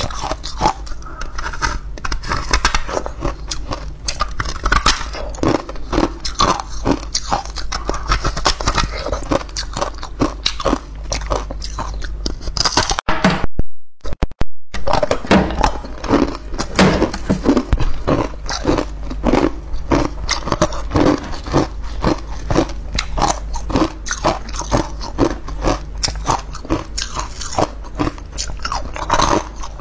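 Close-up crunching of frozen ice cubes topped with green powder being bitten and chewed, in a dense run of irregular cracks and crunches over a steady low hum. The sound cuts out briefly about halfway through.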